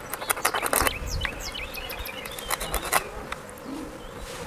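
Small rohu fish being cut against an upright curved blade: a quick run of crisp clicks in the first second and a few more near the middle as the fins and sides are trimmed off. Birds chirp faintly in the background.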